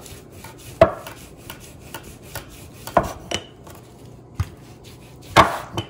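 Wooden rolling pin flattening slices of white bread on a granite countertop: a few separate sharp knocks of wood on stone, the loudest about five and a half seconds in.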